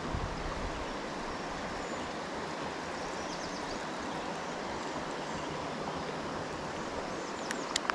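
Trout stream flowing: a steady rush of water, with a few faint clicks near the end.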